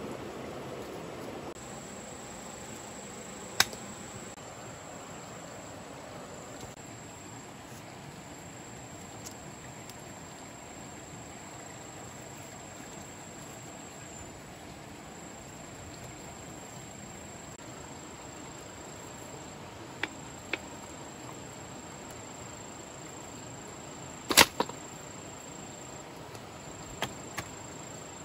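Split bamboo slats clicking and knocking against a woven bamboo cage as a lattice lid is fitted on: a handful of sharp knocks, the loudest a quick double knock about three-quarters of the way through. Underneath runs a steady hiss and a thin, steady high insect trill.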